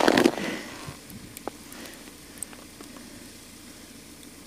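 Rustling and crunching handling noise from gloved hands and clothing working a set line over an ice hole, fading out within the first second. After that, only a faint hiss with a few scattered small clicks.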